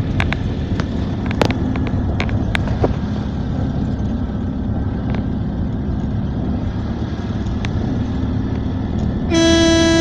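A vehicle's engine and road noise running steadily while driving, with occasional short clicks and rattles. Near the end a horn sounds one loud blast of just under a second.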